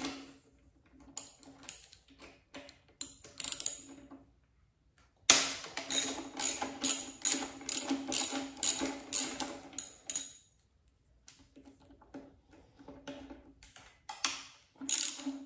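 Socket ratchet clicking as handlebar clamp bolts are loosened. A few clicks at first, then a long run of two or three clicks a second, then a few scattered clicks near the end.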